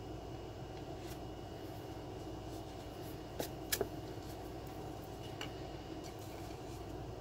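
A folded cardstock sleeve being handled and set on a wooden tabletop: a few light clicks and taps, three close together a little past the middle, over a steady background hum.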